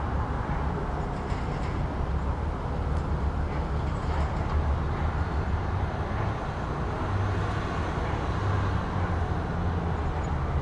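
Steady low rumble of a motor vehicle's engine with road noise, its hum swelling a little in places.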